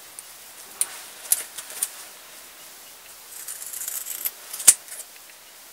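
Fabric scissors snipping through thick layered seam allowances of a sewn pouch: four sharp snips, the loudest near the end. Just before the last snip there is a rustle of fabric being handled.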